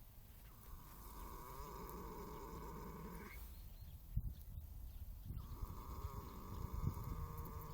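A sleeping horse snoring: two long drawn-out snoring breaths, each about three seconds, with a pause of a couple of seconds between them.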